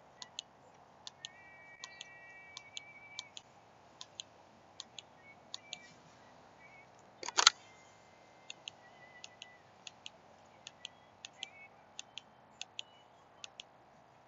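SIRT training pistol's trigger clicking in close pairs, pressed and reset again and again in rapid dry fire. One much louder knock comes about seven seconds in.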